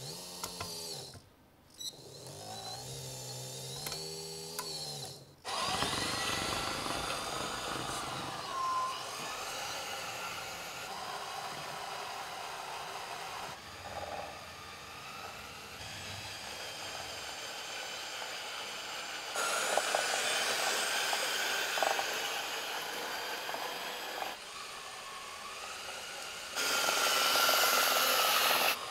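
Whine of a 1/16-scale RC tractor's electric drive motors and gearboxes as it drives and manoeuvres, the level stepping up and down several times. In the first few seconds a lower pitched hum rises and falls.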